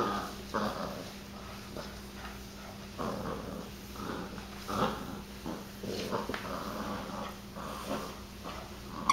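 A small puppy play-growling as it bites and tugs at a plush toy, in short, uneven spurts.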